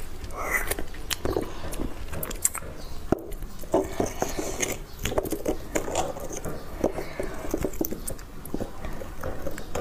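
Close-miked eating sounds: chewing and sucking soft roasted beef bone marrow, with many wet mouth clicks and smacks. A metal spoon scrapes marrow out of a piece of bone.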